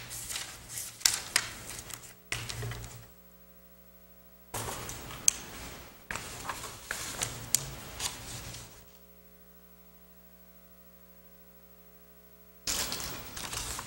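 Papers being shuffled and leafed through, in three bursts of rustling and handling separated by pauses of a few seconds. A steady electrical hum is heard in the pauses.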